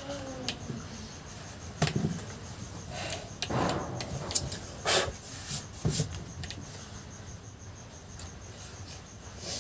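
Handling noises: a few short knocks, rubs and clicks as hands fit a water-pump rotor into an electric drill's chuck, the loudest about five seconds in. Crickets chirp steadily in the background.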